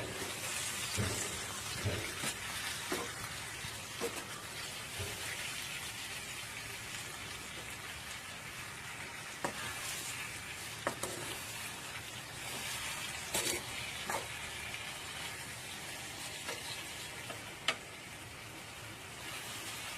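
Steady hiss of water, with a few scattered light clicks and knocks.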